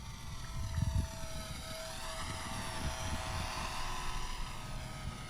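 Micro RC airplane's small electric motor and propeller buzzing in flight. It is a very loud, thin whine of several tones whose pitch sways up and down as the plane moves, with low rumbling underneath that swells about a second in.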